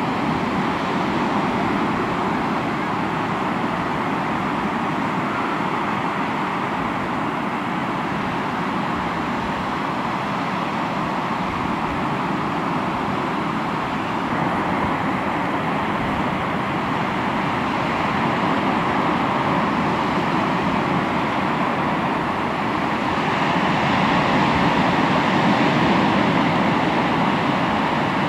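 Sea waves washing on a rocky shore: a steady rushing surf that swells a little louder for a few seconds near the end.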